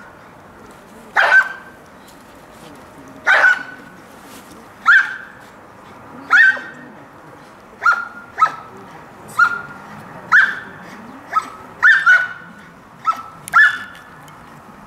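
A guard dog barking steadily at a man hidden in a wooden blind, in a bark-and-hold guarding exercise: about a dozen sharp barks, coming faster toward the end.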